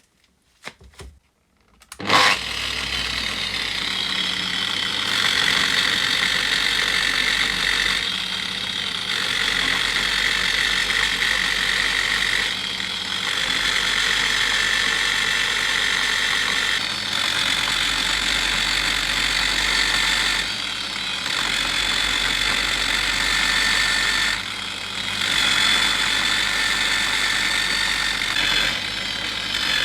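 An electric power tool is switched on about two seconds in and runs steadily, with a high-pitched whirring. The sound dips briefly every few seconds as the tool eases off the work.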